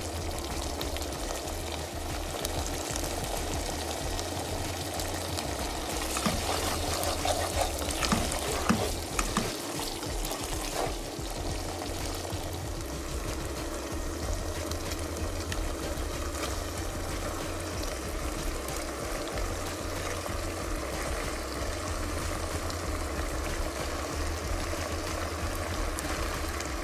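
Tomato and tuna sauce sizzling in a nonstick pan as it is stirred with a spatula, with a few louder scrapes and knocks about six to ten seconds in.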